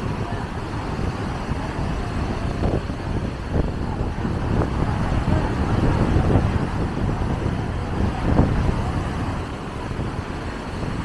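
Surf breaking and washing up the beach, with wind rumbling on the microphone.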